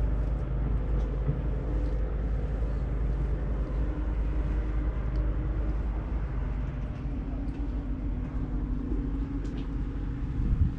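A steady low rumble with a constant mechanical hum of running machinery, with a few faint ticks.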